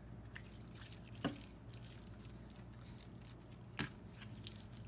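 Bare hands rubbing wet marinade and chopped garlic into raw pork loin: faint wet squelching, with two short sharp smacks, about a second in and near the end.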